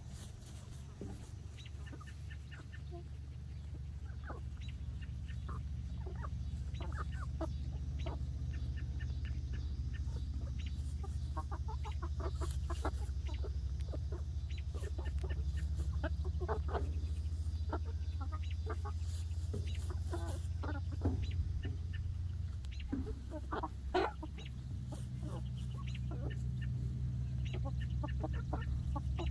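A small flock of young laying hens clucking in short, scattered calls as they forage in grass, over a steady low hum.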